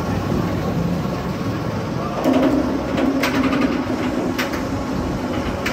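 Bolliger & Mabillard roller coaster train rolling along the track and onto its chain lift. A steady rumble is joined about two seconds in by a low drone, with a few sharp metallic clacks about a second apart.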